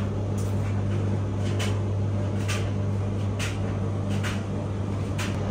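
Light clicks and knocks of a cupboard door holding mops and a stick vacuum, about once a second, over a steady low hum.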